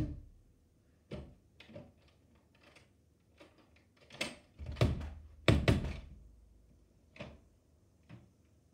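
Glass sliding door being worked open: a run of knocks and thumps from the handle, latch and frame, loudest about five seconds in, with a low rumble under the loudest ones as the panel slides.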